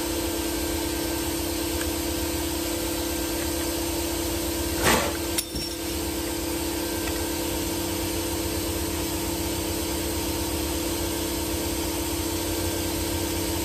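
A motor running steadily with a constant hum, with a short clatter about five seconds in.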